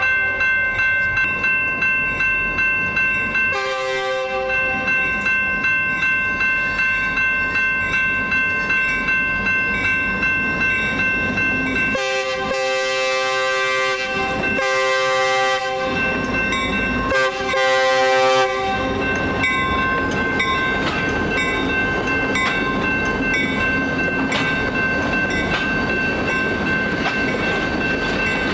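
SD40-2 locomotive's fouled Nathan K3LA five-chime horn sounding one short blast, then a long, long, short, long grade-crossing pattern, over a crossing bell ringing about twice a second. After the horn the passing train rumbles on.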